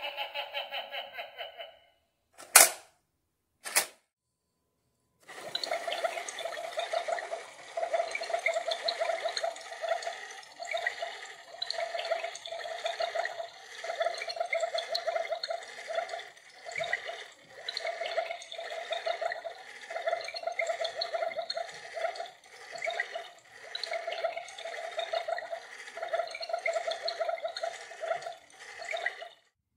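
Light-up Halloween skeleton-fish aquarium prop playing a bubbling water sound effect, in uneven pulses about a second apart. It is preceded by two sharp clicks about three seconds in.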